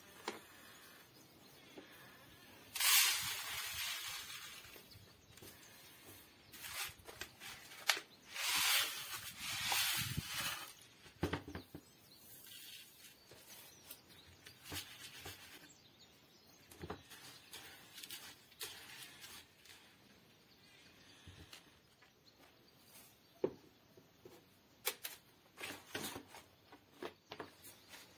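Dry wheat seed poured from a plastic bag into a plastic bucket: two stretches of hissing, rattling grain, about three and eight seconds in. Afterwards scattered light clicks and taps as clear plastic trays are handled and set down on a wooden table.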